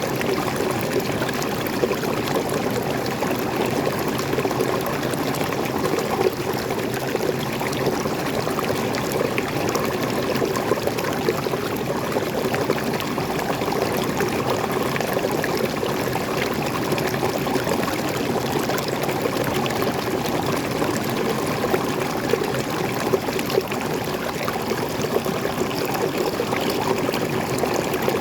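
Freshwater stream running down a small forest waterfall, pouring and splashing over rocks in a steady, unbroken rush.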